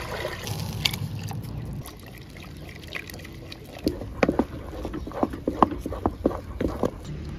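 Water pouring from a jug into a metal pot, stopping after about two seconds. A few seconds in, a wooden stick beats a thick flour porridge in an aluminium pot, knocking against the pot's sides in a quick, irregular run of a dozen or so sharp knocks.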